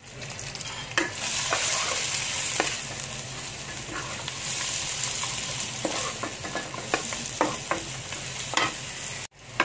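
Sliced onions, garlic and pounded dried shrimp sizzling in hot oil in a wok while a spatula stirs them, with scattered knocks and scrapes of the spatula against the pan. The sound drops out for a moment about nine seconds in.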